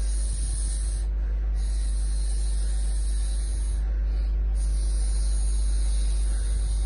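A steady low hum runs under a high, airy hiss. The hiss comes in stretches of one to three seconds with short breaks, about one second, four seconds and near the end.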